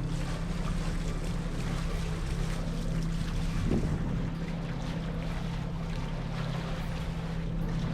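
Catamaran under way: a steady low hum with wind and water rushing past the hull.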